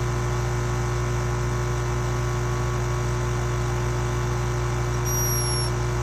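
Hummingbird snoring: one thin, high squeak about five seconds in, held briefly and then dropping slightly in pitch, over a steady low hum.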